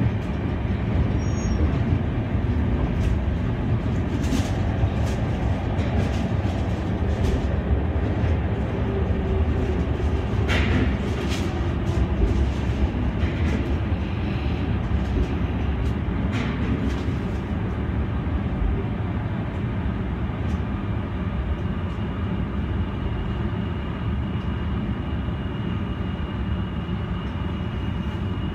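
Senboku Rapid Railway 7020 series electric train running along the line, heard from inside the cab: a steady rumble of wheels on rail with a few sharp clicks scattered through the middle. A faint steady high tone joins in past the middle.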